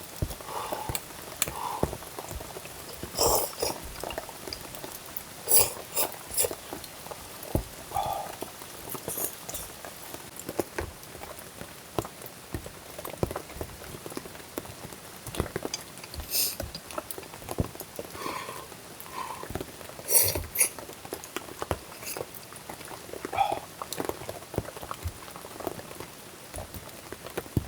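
Rain dripping: irregular drops and taps over a steady light patter.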